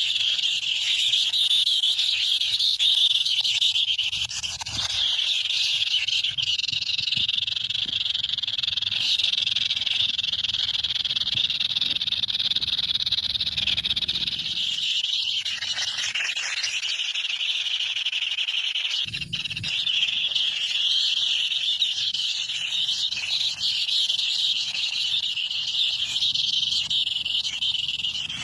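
A dense, steady, high-pitched chorus of calling animals, many callers overlapping without a break.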